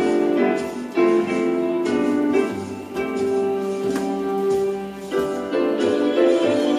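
Instrumental break in a Christmas song: sustained instrumental notes changing about once a second, with no singing.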